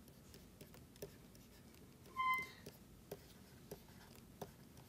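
Stylus tapping and scratching on a tablet screen as letters are handwritten, with faint clicks about every half second. There is one brief high squeak about two seconds in.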